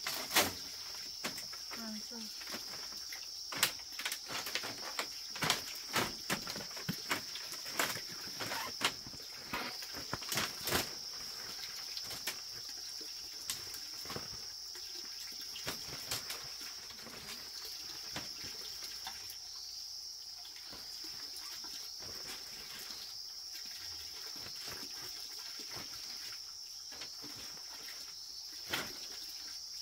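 A steady, high-pitched drone of insects, with irregular sharp knocks and clicks over it, thickest in the first half.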